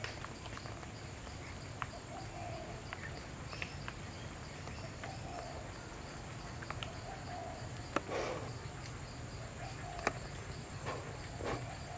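Steady high-pitched insect drone with a pulsing edge, and scattered soft clicks and rustles; a louder rustle comes about eight seconds in, and a sharp click about ten seconds in.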